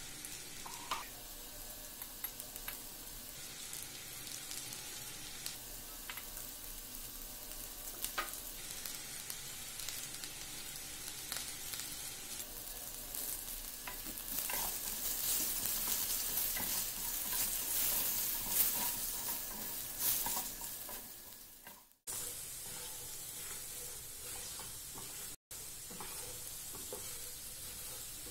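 Potato slices sizzling in hot oil in a frying pan while a spatula scrapes and turns them, with a few clicks of the spatula against the pan. The sizzle swells louder a little past halfway, then cuts off sharply and comes back quieter.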